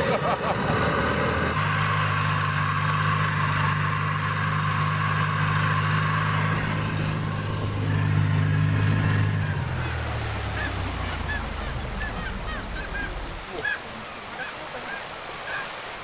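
A boat motor running steadily, then fading away over a few seconds about two-thirds through. Birds give short repeated calls over it in the second half.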